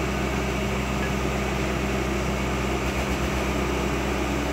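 Diesel engine of a Caterpillar 120B excavator running at a steady speed, a constant low drone.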